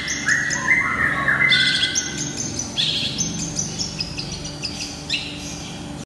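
Cendet (long-tailed shrike) singing: a run of short, varied chirping notes, several a second, getting quieter toward the end.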